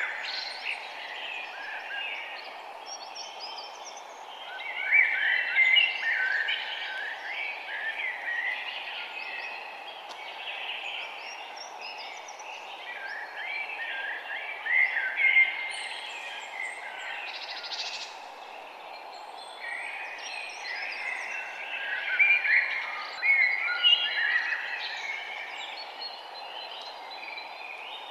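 Several songbirds singing and chirping at once in a forest, with busy overlapping high trills, over a steady background hiss.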